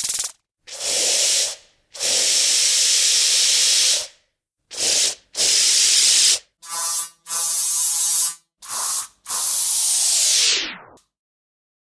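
Aerosol spray paint can hissing in a string of digitally altered variations, about eight bursts, some short and some a couple of seconds long. Two of them have a hollow, ringing tone. The last one sinks in pitch and fades away, like a can running out of paint.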